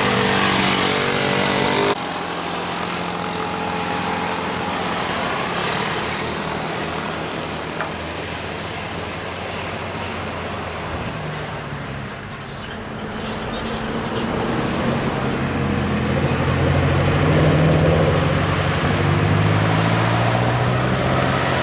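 Road traffic passing close by, with heavy vehicle engines running; the sound changes abruptly about two seconds in. An engine grows louder and its note rises towards the end.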